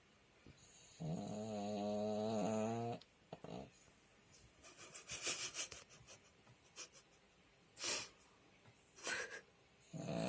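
A pug snoring: one long, steady-pitched snore about a second in that lasts about two seconds, then several short breathy puffs, with the next snore starting at the very end.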